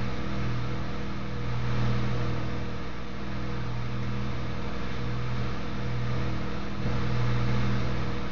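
Steady electrical hum with an even hiss over it, pulsing slightly in strength, from the workshop's electric melting equipment while the molten silver is poured.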